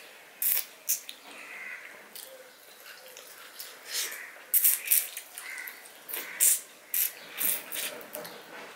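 Close-miked mouth sounds of a man eating with his fingers: irregular wet smacks and sucking clicks as he licks food off his fingers and chews.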